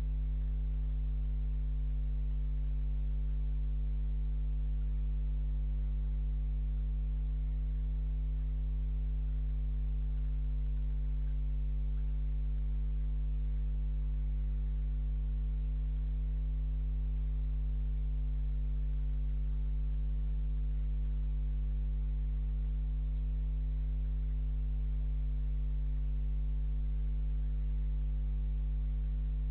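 Steady low electrical hum, a drone with a few higher overtones, in a security camera's audio feed.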